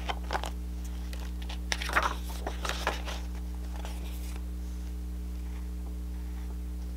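Paper pages of a picture book being handled and turned, with short rustles and crinkles near the start and again about two seconds in, over a steady low hum.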